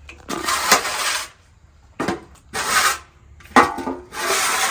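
A large shovel scooping and scraping up wood shavings in about four strokes, each roughly a second long, with a couple of sharp knocks from the blade.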